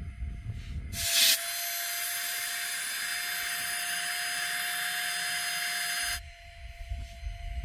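A steady rushing hiss for about five seconds, starting with a sharp burst about a second in and cutting off suddenly, with a faint steady tone underneath. Wind rumbles on the microphone before and after.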